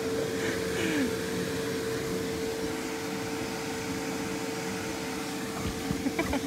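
Electric air blower keeping an inflatable bounce house inflated, running steadily with a constant hum. A few soft knocks near the end.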